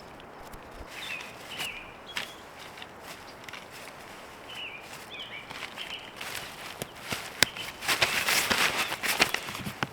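A few short bird chirps, then close rustling and crunching over the last two seconds or so.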